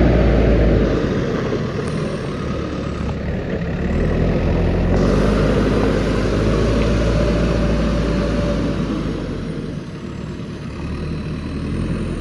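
JCB 3DX backhoe loader's diesel engine running, its loudness and pitch falling and rising several times as the machine works.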